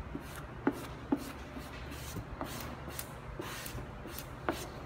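A squeegee rubbing over the transfer tape of a wet-applied vinyl stripe on a motorcycle's hood panel, in a series of short, irregular strokes. A low, steady hum runs beneath.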